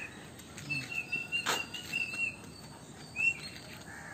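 Small birds chirping in short, high, quick runs about a second in and again near the end, with one sharp click in the middle.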